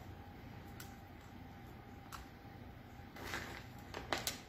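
Faint kitchen handling sounds: a few light clicks, a short scrape about three seconds in and a quick cluster of clicks near the end, as chopped chocolate is pushed off a knife blade by hand into a springform pan. A low steady hum runs underneath.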